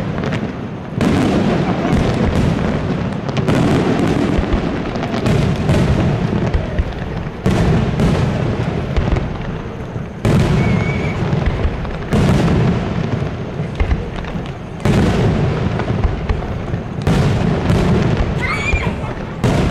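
Aerial firework shells bursting one after another, a sharp boom every second or two over a continuous deep rumble.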